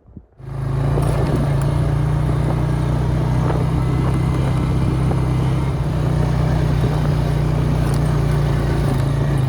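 Vehicle driving: a steady engine hum over road noise, starting abruptly about half a second in.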